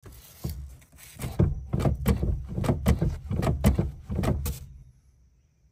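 Brake pedal of a VW TDI being pumped by foot, knocking in pairs, on the press and on the return, about every second, then stopping abruptly. The pedal is hard to push for lack of brake-booster vacuum, the sign of a failing vacuum pump.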